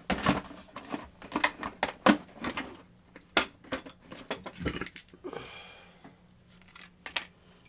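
Rapid small clicks and knocks of a plastic rotary tool and its small parts being handled, with a short scraping sound about five seconds in, then quieter handling toward the end.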